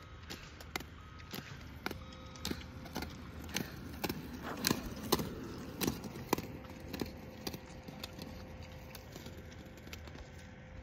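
Roller-ski poles' carbide tips striking asphalt in a steady rhythm of sharp clicks, about one every half second to second as the skier skates, loudest in the middle.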